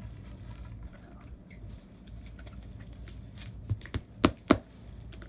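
Hands handling a gift package: faint scratching and rustling, then four sharp taps or clicks in quick succession a little past the middle, the last two the loudest.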